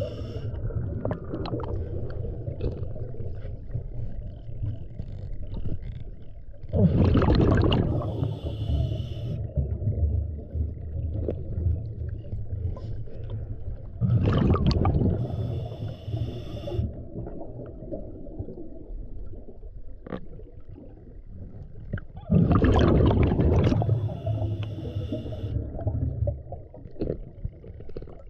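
Scuba diver breathing through a regulator underwater: three loud breaths about seven to eight seconds apart, each a rush followed by a hiss, over a steady low underwater rumble.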